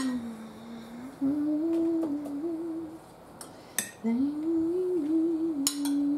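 A person humming a wandering tune in three short phrases, with a few light clinks of kitchen utensils in between.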